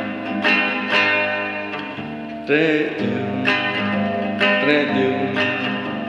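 Acoustic guitar strummed in a steady rhythm, a chord stroke about every half second, with a louder strum about halfway through.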